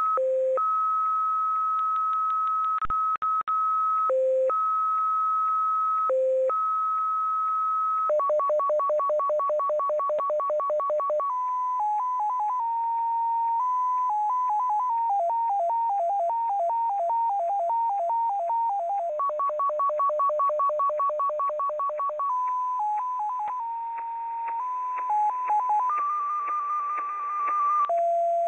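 XPA "Polytones" Russian numbers station received on shortwave in upper sideband, sending multi-frequency-shift-keyed tones. A steady high tone alternates every couple of seconds with a lower one, broken by a click and a brief dropout about three seconds in. About eight seconds in it switches to a rapid two-tone warble and then to strings of short stepped tones hopping up and down in pitch: the start tones giving way to the keyed digit groups.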